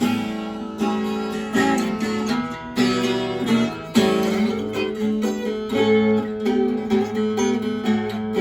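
Background music: plucked acoustic guitar with notes struck at a regular pace.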